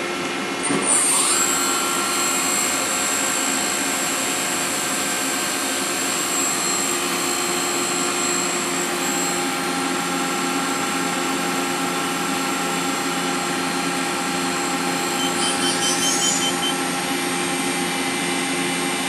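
Mori Seiki NVX5100 vertical machining center's spindle spinning up with a rising whine about a second in, then running steadily at high speed. Near the end the whine rises again as it climbs to about 9,000 rpm, running smoothly, a spindle that sounds healthy.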